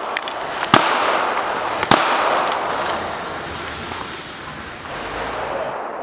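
Two gunshots about a second apart, each sharp crack followed by a long rolling echo, with fainter distant pops around them.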